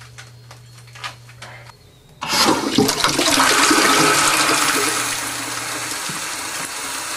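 Toilet flushing: a few light clicks, then about two seconds in a sudden loud rush of water that runs on, easing a little near the end.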